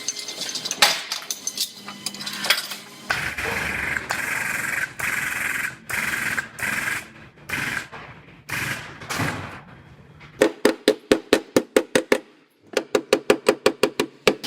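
Collision-repair work pulling out a car's crushed wheelhouse: scattered clanks and knocks, then several seconds of repeated hissing bursts. Near the end come two quick runs of even hammer blows on sheet metal, about five a second.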